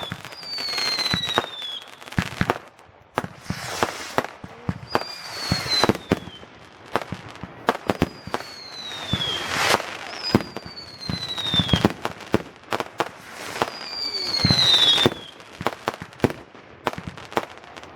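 Fireworks going off in quick succession: many sharp bangs and crackles, with about five whistling fireworks, each whistle falling in pitch over a second or so.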